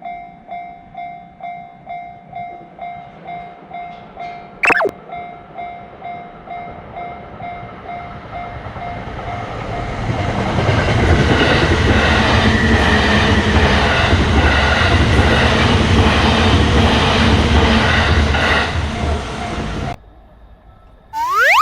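Japanese railroad crossing warning bell ringing about twice a second, with a sharp brief sound about five seconds in. A train then passes through the crossing, its wheels clattering rhythmically over the rail joints. The sound cuts off abruptly near the end, followed by a brief rising tone.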